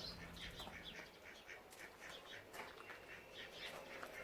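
Ducks quacking faintly, a steady run of short repeated calls several times a second.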